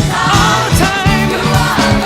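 Upbeat gospel worship song: voices singing with vibrato over a full band with drums.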